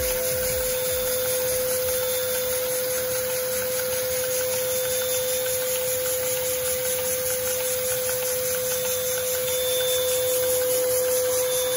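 Lego vacuum-engine-powered ball-contraption module running under test: a steady mechanical hum with one constant tone and a hiss from its vacuum drive.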